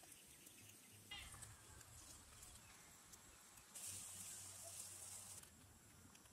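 Near silence: faint outdoor background with a brief run of high chirps about a second in and a soft hiss for a couple of seconds in the second half.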